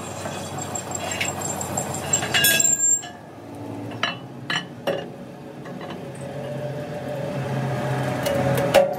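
Steel truck wheel-disc plates clinking and clanking against metal as they are handled at a press: a ringing cluster about two and a half seconds in, a few single clinks around four to five seconds, and a sharp clank near the end. A steady machine hum runs underneath.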